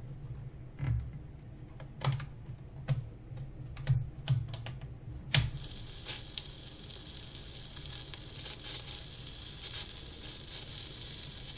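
A few sharp clicks and knocks of a record player being handled as the record is set playing, the loudest about five seconds in. After it comes a faint steady hiss, like the stylus riding the lead-in groove of the record before the music begins.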